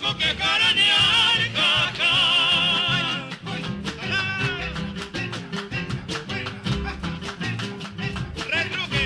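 Peruvian música criolla: a male voice sings with vibrato over acoustic guitar, breaks off after about three seconds into a strummed guitar passage, and comes back in near the end.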